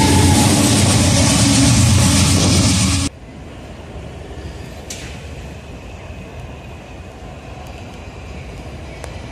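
A GE Dash 9-44CW diesel freight locomotive passing close by, its V16 engine rumbling loudly under the rush of the moving train. About three seconds in the sound cuts off abruptly to much quieter open-air background noise.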